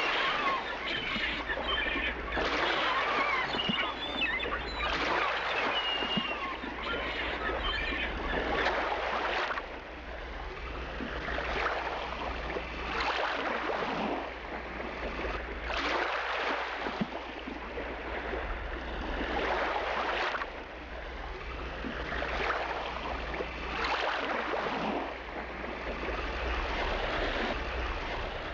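Rushing, splashing water that swells and ebbs every second or two, with birds chirping over it in the first several seconds.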